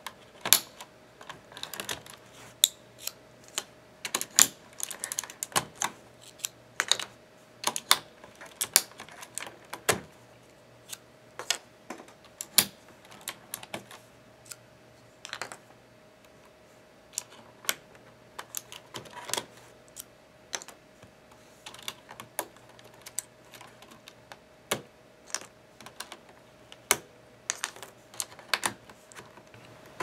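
Plastic keycaps being pulled off a CM Storm Quickfire TK's Cherry MX switches: irregular sharp clicks and clacks, sometimes in quick clusters, with a faint steady hum underneath.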